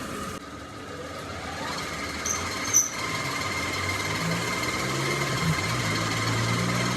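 A machine in a metalworking shop running with a steady hum; it builds up over the first few seconds, with a sharp click about three seconds in.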